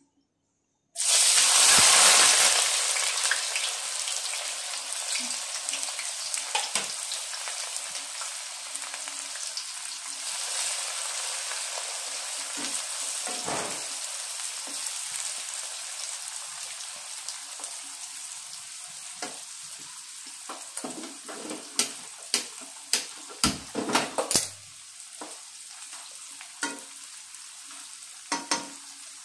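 Sliced onions dropped into hot oil in a kadhai: a sudden loud sizzle starts about a second in and slowly dies down. The frying continues while a spatula stirs them, knocking and scraping against the pan several times near the end.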